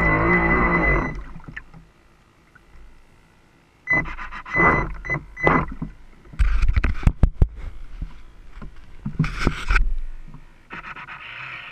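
RC speedboat's motor whining with a wavering pitch, then cutting off about a second in. A couple of seconds of near quiet follow, then irregular splashes and slaps of rough water against the small hull, with a short spray-like hiss near the end.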